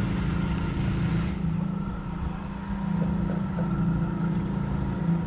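Outboard engine of a centre-console boat running steadily at trolling speed, a low even drone.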